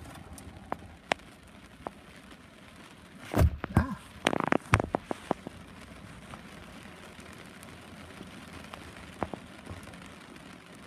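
Steady heavy rain, with scattered sharp drips hitting a hard surface close by. A burst of loud knocks and a low thump comes about three and a half to five seconds in.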